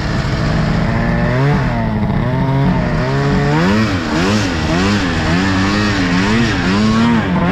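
Snowmobile engine being ridden, its pitch rising and falling again and again as the throttle is worked.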